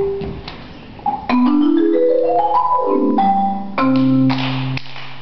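Instrumental music of single struck, pitched notes: a quick run climbs about a second and a half in, falls back, and ends on a low held note.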